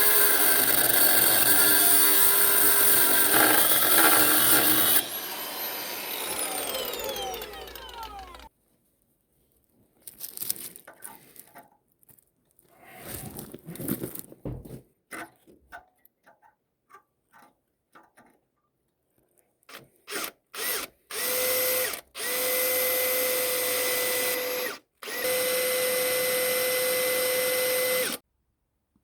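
A power tool runs hard, then winds down with a falling whine about five seconds in. After some clinks and handling noises, a drill-like tool runs in several bursts of a few seconds each with a steady whine.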